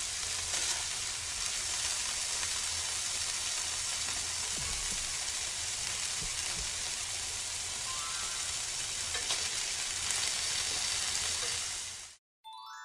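Thick bone-in pork tomahawk chops sizzling on a grill over a coal-briquette fire, a steady sizzle that cuts off near the end. A short ringing chime follows.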